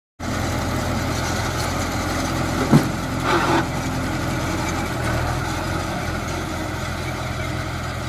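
Sanman 6000 tractor's diesel engine running steadily at low revs, with one sharp clack a little under three seconds in and a brief rattling burst just after.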